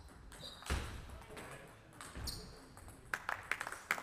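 Table tennis ball bouncing, a quick run of light, sharp clicks about seven a second starting near the end, as the ball is bounced before the serve. A soft thump comes about a second in.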